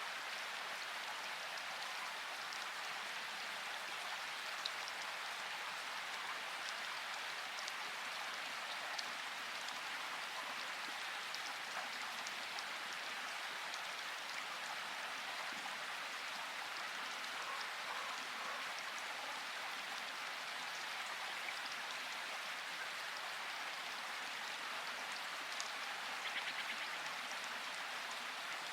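Steady rain falling in a forest: an even hiss of rainfall with scattered individual drops ticking, and a short patter of louder drops near the end.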